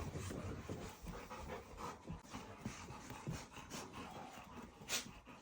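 Golden retrievers panting, with small clicks and rustles and one sharper click about five seconds in.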